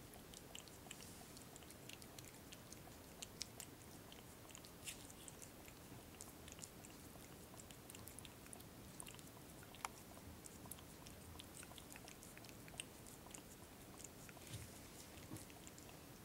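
A cat licking and lapping a puree treat from a hand-held squeeze tube, heard as faint, quick, irregular wet tongue clicks and smacks, with a few louder smacks scattered through.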